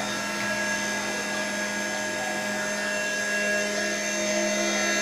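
Homemade CNC machine running while cutting: a steady motor whine holding several fixed pitches.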